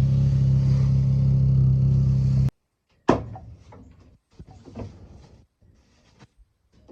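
A vehicle's engine running with a steady low drone that cuts off abruptly about two and a half seconds in, followed by a few scattered knocks and thuds.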